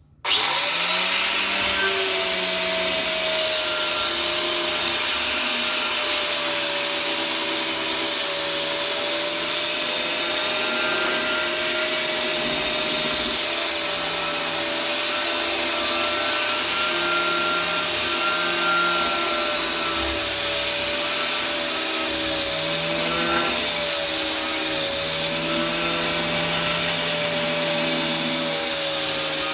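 Electric sander switched on and running steadily while sanding a walnut sign with 120-grit paper: a constant motor whine whose pitch wavers slightly as it is worked over the wood.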